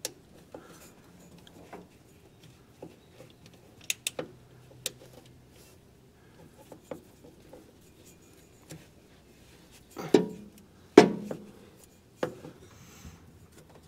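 A strap wrench being worked around a truck engine's spin-on fuel filter to loosen it: light clicks and rubbing of the strap and handle, with a few louder knocks near the end.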